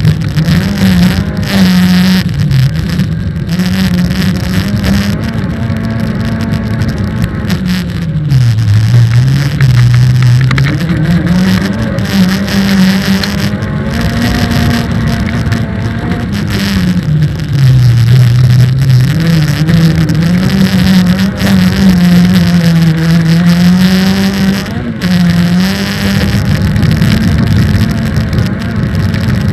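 Autocross race car's engine running hard under load, loud and continuous, its pitch rising and falling with throttle and gear changes. It drops to a low pitch twice, about eight seconds in and again around seventeen seconds, before climbing back up.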